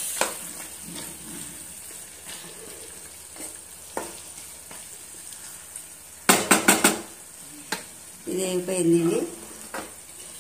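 Chicken masala sizzling and frying in a nonstick kadai while a wooden spatula stirs it. A few scattered clicks, then a quick run of sharp knocks against the pan a little past halfway.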